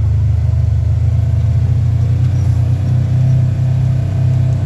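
Polaris General XP 4 1000 side-by-side's engine running steadily under way, a deep, even drone heard from inside the cab.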